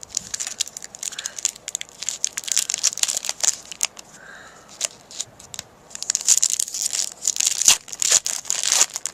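Foil wrapper of a Magic: The Gathering booster pack being torn open and crinkled, a crackly rustling full of sharp clicks that gets busier and louder about six seconds in.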